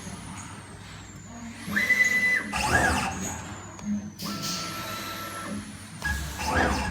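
Stepper motors of a 4040 CNC router whining as the gantry is jogged along the X and Y axes: two moves, each a steady tone, the first higher-pitched and short, the second lower and longer, with a short burst of noise after each.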